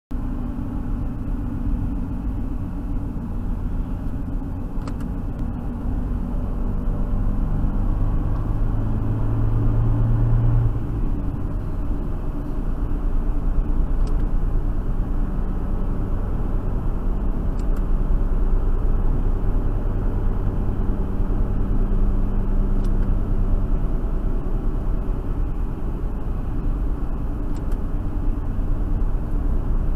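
Dacia Duster driving at about 60–70 km/h, heard from inside the cabin: a steady engine hum under tyre and road noise. A low engine note grows stronger about eight seconds in and breaks off suddenly a couple of seconds later.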